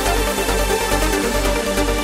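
Background electronic dance music with a steady, fast beat, a little over two beats a second, under sustained synth chords.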